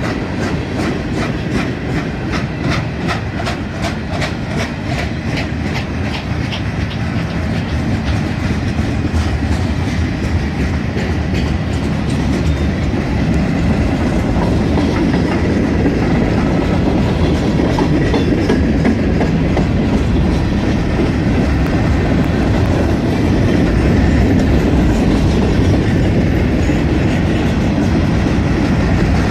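Norfolk Southern freight train rolling past: wheels click rapidly over the rail joints under a continuous rail rumble. The clicking is plainest in the first part, and the rumble grows slightly louder toward the end.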